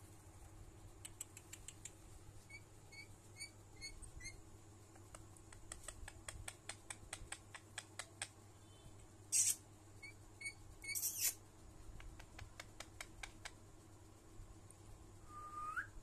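An Indian ringneck parakeet being stroked makes a run of quick clicks and a few short soft chirps. Two short, loud hiss-like bursts come about nine and eleven seconds in, and a short rising whistle comes near the end.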